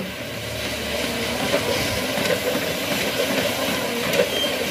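Manual treadmill in use: the belt and rollers running under a person's walking steps, a steady rolling rumble with footfalls on the deck.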